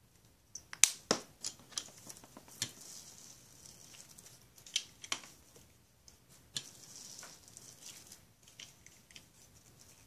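Plastic cling wrap crinkling and crackling as it is pressed and smoothed by hand over wet paint, with scattered sharp clicks and snaps.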